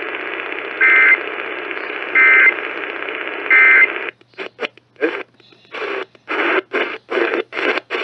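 EAS End of Message data signal from an AM radio: three short two-tone warbling bursts about 1.3 seconds apart over steady static hiss, marking the end of the Emergency Alert System test. From about four seconds in, the Kaito Voyager Pro is tuned down the AM band, and snatches of stations cut in and out between muted gaps.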